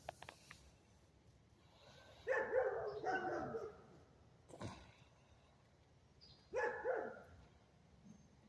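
A domestic animal giving short pitched calls: two close together about two seconds in and one more near the end, with a faint click at the start and a sharp tick in between.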